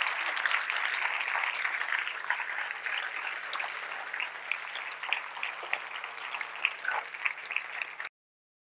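Audience applauding, dense at first and slowly thinning to scattered separate claps, then cutting off suddenly about eight seconds in.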